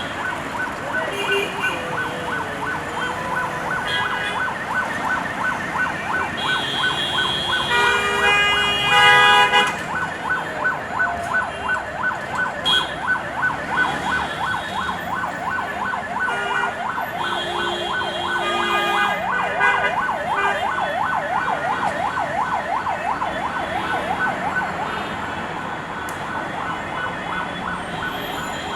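An emergency vehicle's siren warbling fast and continuously, with several vehicle horns honking over it; the horns are loudest about eight to ten seconds in.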